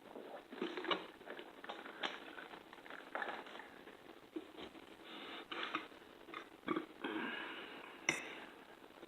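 Close-up eating sounds: chewing and mouth smacks in short irregular bursts, with a sharp click near the end.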